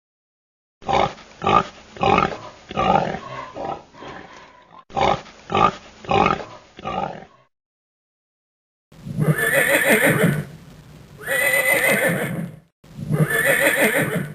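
Horse neighing: first a string of short pulsing calls, then after a brief pause three longer whinnies.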